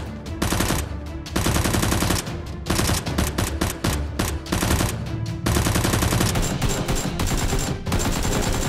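Rapid automatic gunfire in several long bursts, each broken off by a short pause. It sounds like realistic gun sound effects rather than the soft pop of toy blasters.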